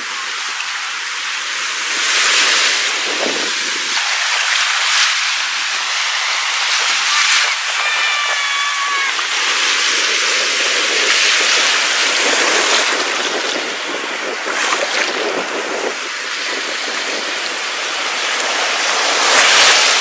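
Surf of the stormy Black Sea washing in over the shallows around the camera, a steady wash that swells as each wave comes in. A brief high-pitched call sounds about eight seconds in.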